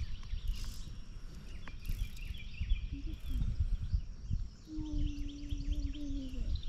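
Small birds chirping in short, repeated notes over a low, uneven rumble of outdoor noise. In the second half a steady low hum-like tone holds for about two seconds, dipping slightly as it ends.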